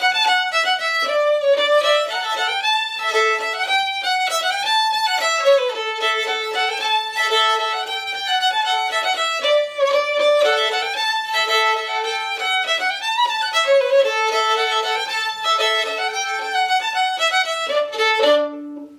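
Fiddle playing a lively old-time fiddle tune in quick, even notes, finishing on a held low note that cuts off near the end.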